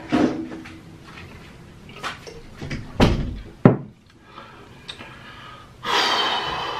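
Gulping water from a glass, then two loud knocks about three seconds in as the glass is set down on the table. A long breathy exhale through puffed cheeks comes near the end.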